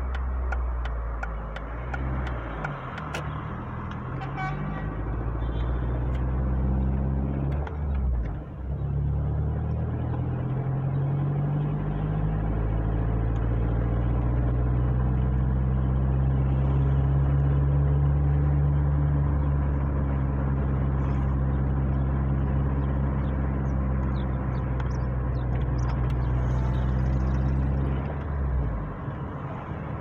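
Car engine heard from inside the cabin while driving: its pitch climbs and drops with gear changes in the first ten seconds, then pulls steadily and eases off near the end. A turn signal ticks for the first few seconds.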